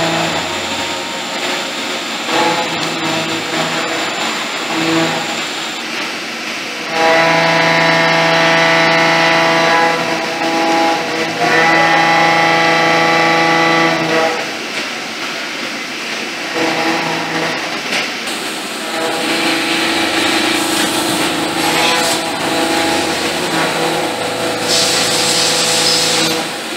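CNC milling machine roughing a blank: a steady pitched hum with overtones as the cutter works. It grows louder during two passes between about seven and fourteen seconds in.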